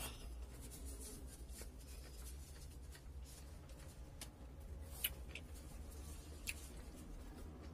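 Soft rustling of a paper tissue being unfolded and wiped across the mouth, with two faint sharp clicks about five and six and a half seconds in.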